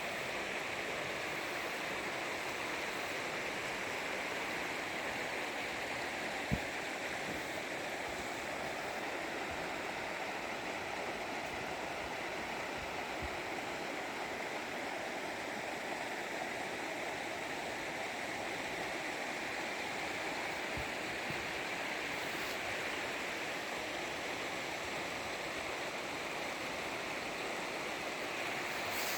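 Steady rush of the Hoh River's flowing water, with one brief knock about six seconds in.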